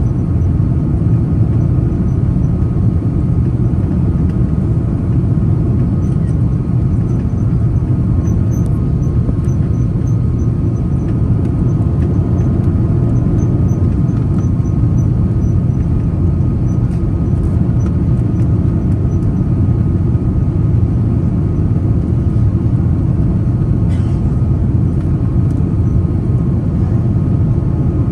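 Steady engine and airflow noise inside the cabin of an Airbus A330 airliner on final approach, a deep even rumble with faint steady whining tones above it.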